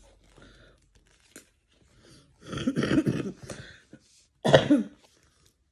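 A woman coughing: a rough burst of coughs around the middle, then one more short cough about a second and a half later.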